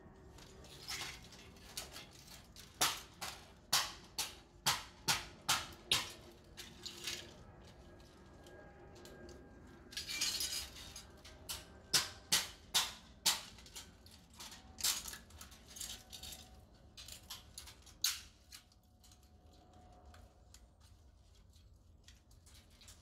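Broken plastic and small parts of a wrecked DJI FPV drone cracking and snapping as they are pried and cut apart with a hand tool, with loose pieces rattling. A run of sharp snaps comes about two a second a few seconds in, then a scraping rustle, then more snaps.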